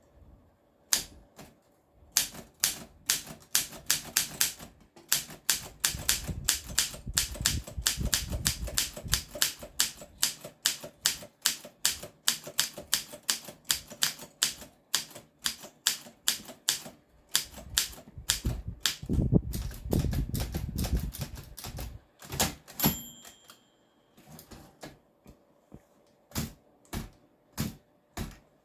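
Olympia SM3 manual typewriter being typed on: a fast, uneven run of key strikes, several a second. About three quarters through, a single bell ring sounds, typical of the margin bell at the end of a line, followed by a few scattered strikes.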